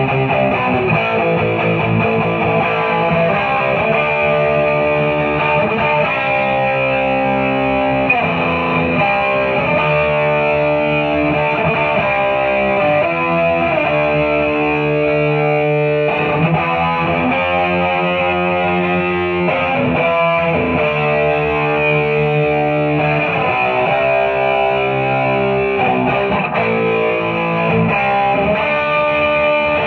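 Overdriven electric guitar, a Gibson Les Paul Studio through a Boss SD-1 overdrive pedal into a Marshall DSL40C amp, playing held chords that change every second or two.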